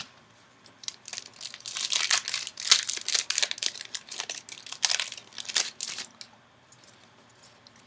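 Foil booster pack wrapper of a Yu-Gi-Oh card pack being torn open and crinkled in the hands: a run of sharp crackles starting about a second in and stopping about six seconds in.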